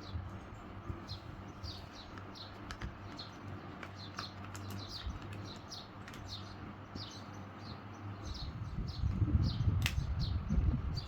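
A bird chirping over and over, short falling high notes about twice a second, over a faint low hum. From about eight seconds in, a louder low rumbling noise rises beneath the chirps.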